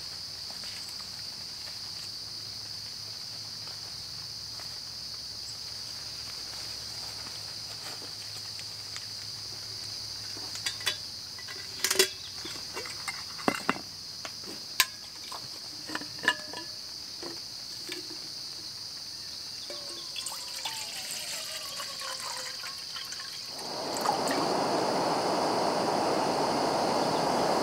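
Gas canister stove lit under a kettle, its burner hissing loudly and steadily from about 24 seconds in. Before that, cookware clinks several times and water is poured into the kettle, rising in pitch as it fills, over a steady high chirping of insects.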